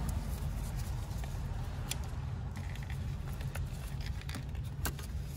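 Hands unplugging the plastic electrical connectors from an intake manifold runner control solenoid bracket: a few sharp clicks and handling noises over a steady low rumble.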